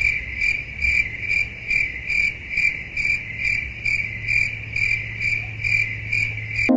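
Cricket chirping: a high, even trill that pulses about twice a second over a low steady hum.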